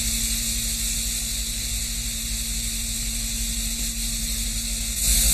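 Steady tape hiss with a low electrical hum from an old videotape's leader at the countdown clock, stepping up slightly near the end.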